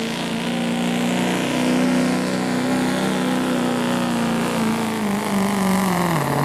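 Ford Super Duty diesel pickup engine running flat out under load while pulling a weight-transfer sled. The engine note holds high and steady, sags about five seconds in, then falls in pitch near the end as the truck slows.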